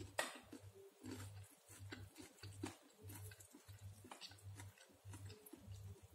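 Faint chewing and lip smacks from a person eating napa cabbage pancake, with a low hum that cuts in and out about twice a second.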